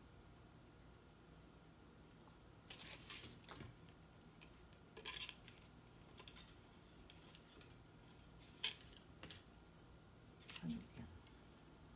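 Faint handling noise of a small battery being pushed into a plastic night-fishing float: a few short clicks and scrapes of small hard parts, the sharpest click about two thirds of the way through.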